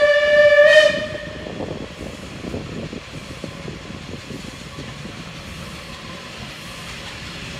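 Steam locomotive City of Wells sounding a loud, single-pitched whistle that ends with a brief upward lift about a second in. It is followed by the steady rumble of the locomotive and train in motion.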